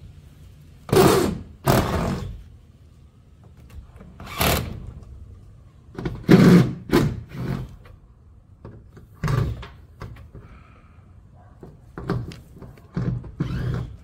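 Irregular heavy thunks and bangs from an old panelled garage door as workers dismantle it to take it out, about ten knocks at uneven intervals.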